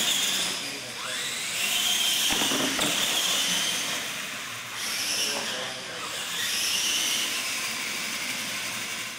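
Electric motors and gears of RC monster trucks whining as they race, rising and falling in pitch as the trucks speed up and slow through the turns, then fading out near the end.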